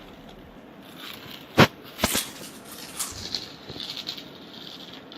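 Crisp packets crinkling and rustling as they are handled, with a sharp click about a second and a half in and short bursts of rustling around two and three seconds.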